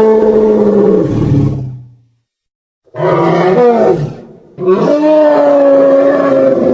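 Animal roars used as a dinosaur's roar sound effect: one long roar fading out about two seconds in, then after a short gap two more roars back to back, the last one long and held steady.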